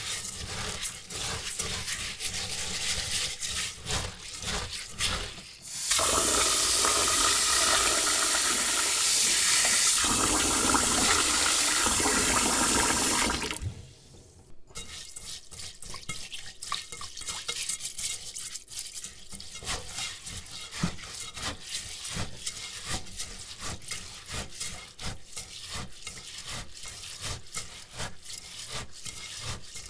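Rice being washed by hand in a bowl, the grains scrubbed and swished in rapid strokes. About six seconds in, a tap runs loudly into the bowl for about seven seconds, then stops, and the scrubbing and stirring of the wet rice resumes.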